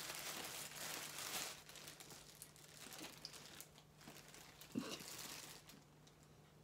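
Plastic packaging crinkling as a toy action figure is pulled out of it, loudest in the first second and a half, then fainter handling with a short soft thump about five seconds in.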